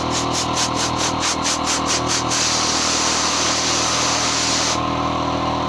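Compressed air hissing from a blow gun aimed at burning wood to keep the flame down. The hiss pulses about five times a second for the first two seconds, then blows steadily, over a steady machine hum.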